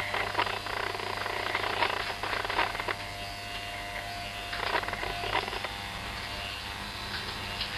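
Electric hair clippers running with a steady buzz, with short bursts of crackling louder noise at intervals as the blades work through hair.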